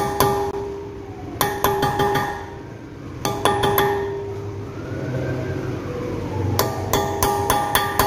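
Hammer tapping a flat-blade screwdriver against the staked lock collar of a Suzuki Ertiga's front axle hub nut, unstaking it before the nut is loosened. The strikes come in short runs of quick, ringing metallic taps: a few near the start, a run about a second and a half in, another about three seconds in, and a longer run near the end.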